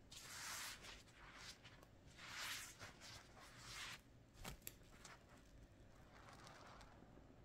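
Faint wet swishing of a sudsy sponge being worked and squeezed, three soft strokes spread over the first four seconds, with two small clicks just after the third.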